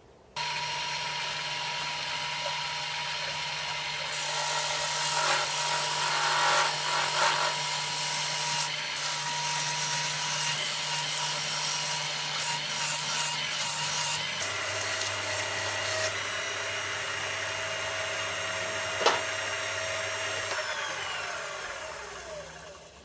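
Small metal lathe switched on, turning an aluminium casting while the tool takes a facing cut, with a steady motor hum under the hiss of chips being cut. One sharp click comes about three quarters of the way through, then the lathe is switched off and winds down with falling tones.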